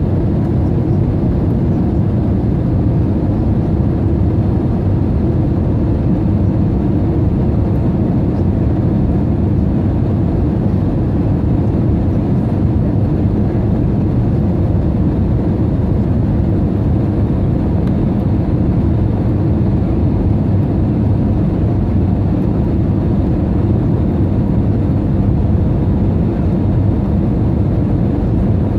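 Steady low rumble of cabin noise inside an Airbus A320 airliner during its descent on approach to land.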